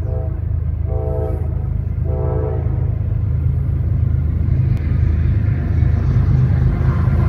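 Approaching freight train's diesel locomotives, a steady low engine rumble that grows slowly louder as they near. The locomotive horn sounds three times in the first few seconds: a blast ending just after the start, then two short blasts of about half a second, about a second and two seconds in.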